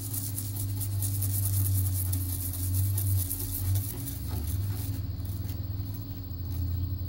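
Acetone being scrubbed across a circuit board to wash off residual flux: a rapid scratchy swishing that stops about five seconds in. A steady low hum runs underneath.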